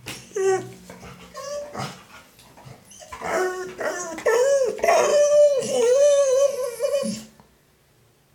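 Golden retriever whining and 'talking' in a run of short calls that rise and fall, then a longer wavering moan from about three seconds in that stops about seven seconds in. It is the talkative protest of a dog that doesn't want to be at the vet.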